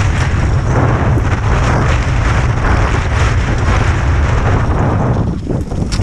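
Wind buffeting the camera's microphone during a downhill ski run: a loud, steady low rumble with a rushing hiss of skis sliding over snow, easing briefly about five seconds in.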